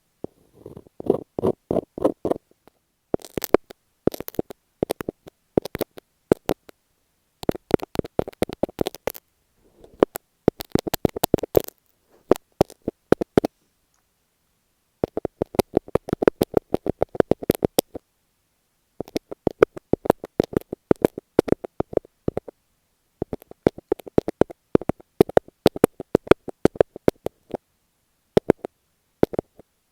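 Rapid fingertip tapping on masking tape stuck over an earphone microphone, heard very close. The taps come in quick runs of a few seconds separated by short pauses.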